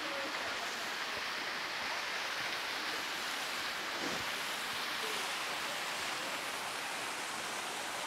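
Juney Whank Falls, a woodland waterfall, rushing: a steady, even hiss of falling water.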